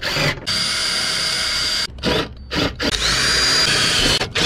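Ridgid 18V cordless drill running in bursts as it drills and drives fasteners into an ATV floorboard panel. First comes a steady whine of about a second and a half, then short bursts, then a whine that rises as the drill spins up, holds, and drops near the end.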